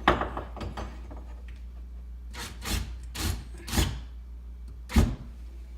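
Wooden parts being handled and rubbed against wood: a sharp knock, four short scraping strokes, then another sharp knock near the end, over a steady low hum.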